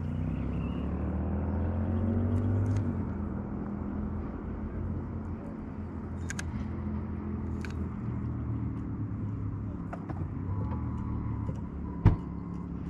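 Boat motor running with a steady low hum, rising in pitch over the first few seconds and then settling. A single sharp knock near the end.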